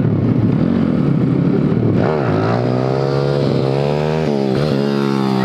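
Pit bike engine running, revving up about two seconds in and then held at steady revs on the throttle through a wheelie, with a brief dip in revs partway through and revs starting to fall near the end.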